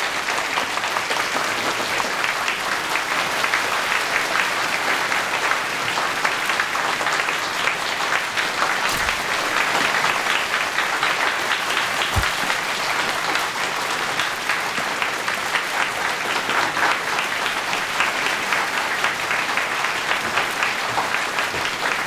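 A large audience applauding, a dense, steady clapping that keeps up throughout and eases off at the very end.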